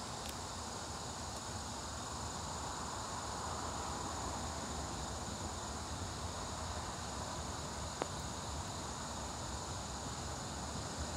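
Steady high-pitched drone of insects such as crickets, over a low rumble, with a single sharp click about eight seconds in.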